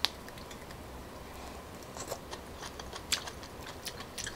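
A crisp bite into a live coconut weevil grub right at the start, then scattered small clicks of chewing it, one a little louder about three seconds in.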